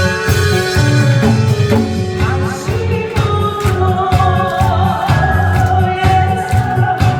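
Upbeat medley music with singing over a steady drum beat, with janggu drums played along.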